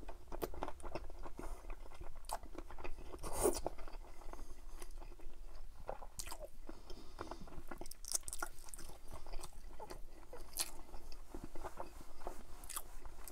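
Chewing of crispy-skinned chicken drumsticks in butter chicken sauce: irregular mouth smacks and clicks.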